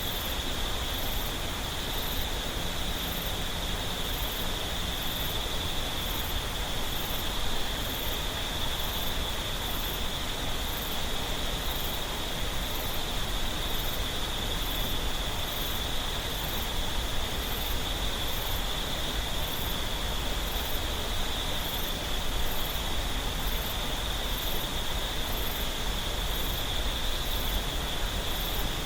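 Mountain stream water flowing steadily over rocks, with insects buzzing in a continuous high drone and a faint, very high chirp repeating about once a second.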